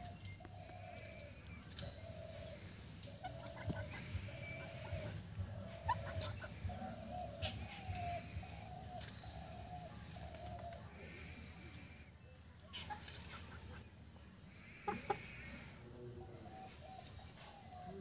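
Young Aseel chicken clucking: a steady run of short, even calls, about one and a half a second, that stops about ten seconds in and starts again near the end.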